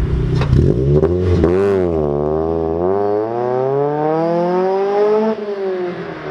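Mazda Miata NB four-cylinder through an M2 Motorsport exhaust with the silencer removed, launching hard in first gear. The engine note dips briefly as it pulls off, then climbs steadily for about three seconds, drops sharply about five seconds in and fades as the car pulls away.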